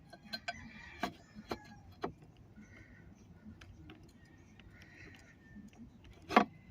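Small clicks and clinks of a fuel injector and its retaining clip being handled and pressed off the fuel rail, with one louder sharp click near the end.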